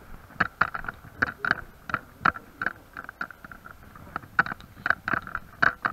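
A run of irregular sharp clicks and crunches, about two or three a second.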